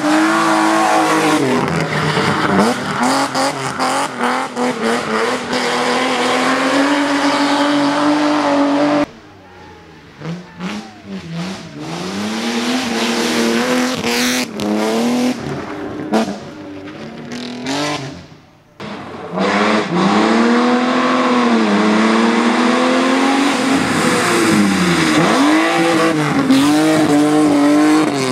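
BMW 318is E30 rally car's four-cylinder engine run hard, its pitch climbing and dropping repeatedly through gear changes and lifts. About a third of the way in it drops to a much quieter stretch with scattered sharp clicks and pops, then comes back at full revs for the last third.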